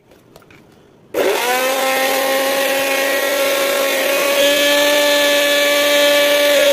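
Electric mixer grinder's motor switched on about a second in, after a few light handling clicks, then running with a loud, steady whine as its blade spins in an empty stainless steel jar. The tone shifts slightly about four seconds in.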